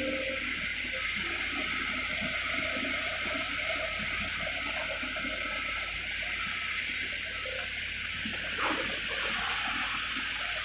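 Water rushing and splashing steadily, over a constant low rumble.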